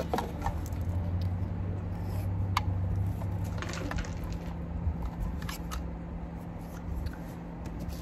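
Scattered light clicks and rustles of a mesh drawstring bag and a plastic travel power converter being handled, over a steady low background rumble.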